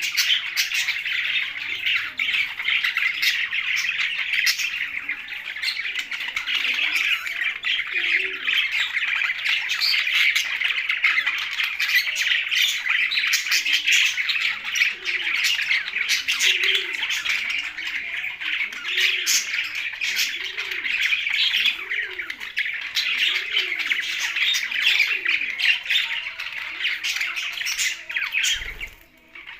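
Caged budgerigars and parrots chattering and squawking continuously in a dense, overlapping din. In the second half, a lower call rises and falls about once a second. The chatter drops away briefly near the end.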